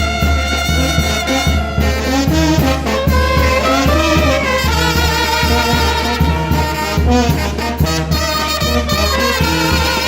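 Brass band from the Guerrero mountain region playing: horns hold a melody over low bass notes pulsing on a steady beat.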